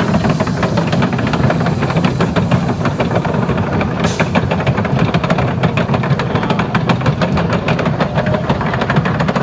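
Wooden roller coaster train being hauled up its cable lift hill: a steady low rumble with rapid clicking and rattling, and a brief hiss about four seconds in.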